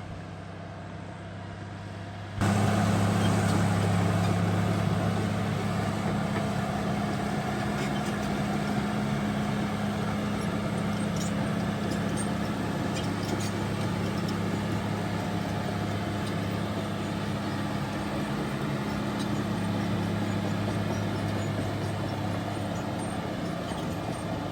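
Bulldozer's diesel engine running steadily at working speed. It gets abruptly louder about two seconds in.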